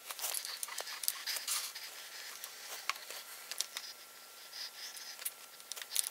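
Irregular light clicks, scrapes and rustling as the router is raised under a router table, lifting a flush-trim bit with a top bearing up through the table insert. No motor is running.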